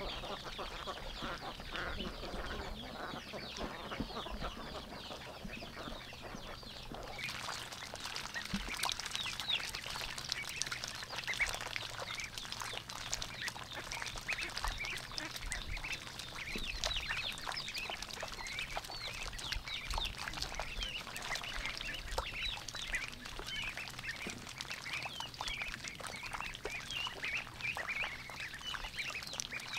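A flock of ducklings peeping nonstop, many short high calls overlapping one another. The calls grow busier about seven seconds in.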